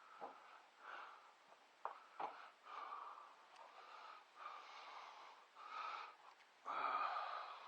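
Soft breathing close to the microphone: a series of breaths about a second apart, with a few light clicks between them.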